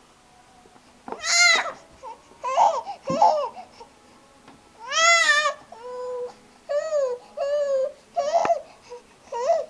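Infant vocalising in a run of short, high-pitched cries and squeals, about one a second, each rising and falling in pitch.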